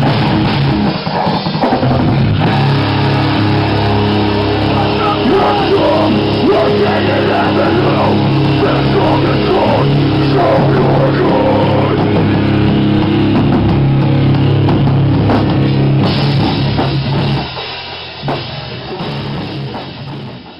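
Rock band playing live: electric guitar and drum kit, loud in a small room. About seventeen seconds in, the song ends and the last chord rings out and fades.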